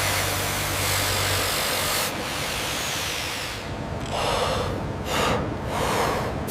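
Loud, steady hiss of rushing air or spray with a low machine hum under it for the first second and a half. From about four seconds in, the hiss breaks into several short bursts.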